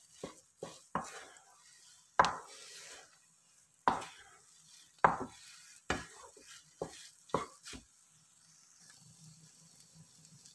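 Wooden spatula scraping and knocking against a granite-coated nonstick pan as thick bread halwa is stirred and pressed with ghee. The strokes are irregular, roughly one a second, and stop about eight seconds in.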